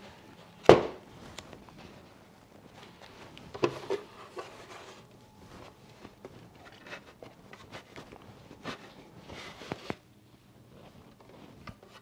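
Thin white protective wrap rustling and crinkling as a Synology DS220j NAS is slid out of it by hand, with a sharp knock about a second in as the loudest sound. Scattered crinkles and small taps follow, dying down near the end.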